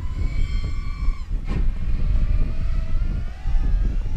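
FPV racing quadcopter's electric motors whining, their pitch holding steady and then wavering up and down with throttle, over a heavy wind rumble. A brief sharp click about one and a half seconds in.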